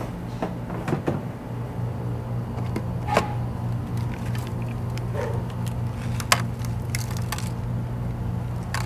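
Scattered sharp clicks and knocks of cooking utensils against a pan while dak-galbi is cooked, the loudest about six seconds in, over a steady low hum.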